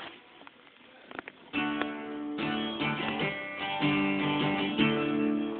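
Acoustic guitar strumming chords in a steady rhythm, starting about a second and a half in after a few faint clicks.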